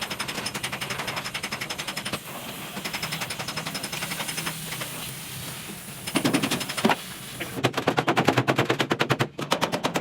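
A power tool hammering rapidly, about ten strikes a second, in runs broken by short pauses.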